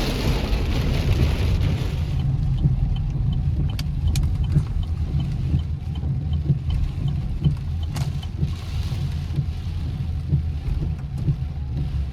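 A motor vehicle running with a low, steady rumble. Through the middle there is a faint, fast ticking of roughly four a second, and a few sharp clicks.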